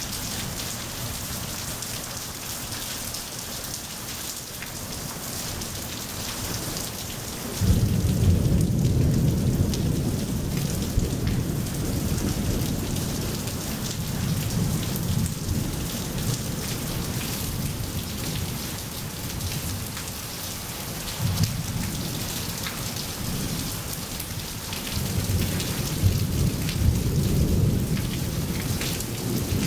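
Steady rain pattering on wet pavement, with thunder: a low rumble breaks in suddenly about a quarter of the way in and rolls for several seconds, then swells again near the end.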